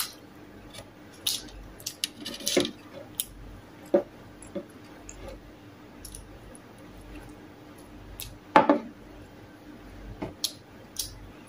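Eating sounds: chewing and mouth noises, with fingers picking at bacon on a metal tray and a ceramic rice bowl being handled. Scattered small clicks, with a few louder clatters, the loudest about eight and a half seconds in.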